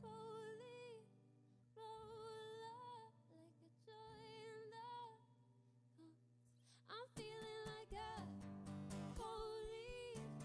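Female voice singing long, wavering held notes in three short phrases with pauses, over soft ringing acoustic guitar. About seven seconds in, strummed acoustic guitar and fuller singing come in.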